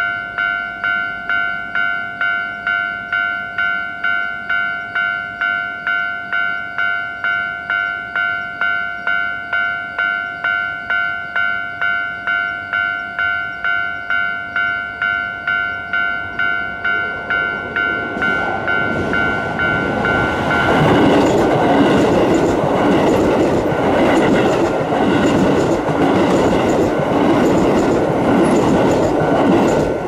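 Japanese level-crossing warning bell ringing in a steady clang, about two strokes a second. About 18 seconds in, a Keio Line electric train runs through the crossing, its wheels clattering over the rail joints and drowning the bell until it fades near the end.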